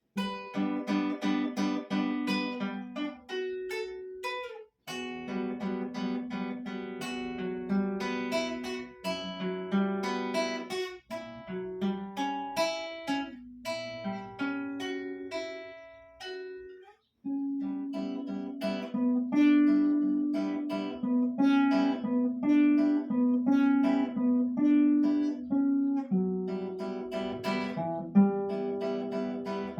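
Solo acoustic guitar playing a fingerpicked piece: quick runs of plucked notes over low bass notes, with short pauses between phrases.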